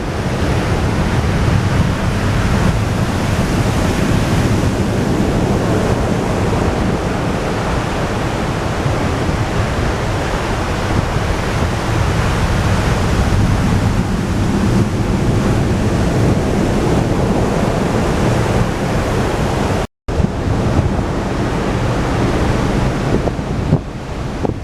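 Heavy typhoon surf breaking on the shore, a continuous rush of rough sea, with strong wind buffeting the microphone. It cuts out for an instant about twenty seconds in.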